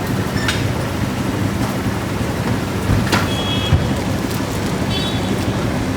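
Steady city street traffic noise with a low hum, and a couple of sharp clicks about half a second and three seconds in.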